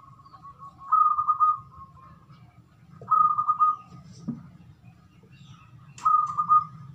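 Caged zebra dove (perkutut) cooing: three short trilled coos, about two to three seconds apart, over a faint low hum.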